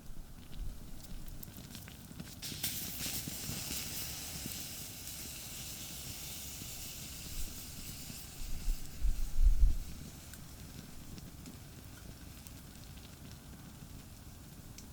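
Campfire crackling with a hissing sizzle that swells about three seconds in and slowly fades. A few dull low thumps come near the middle.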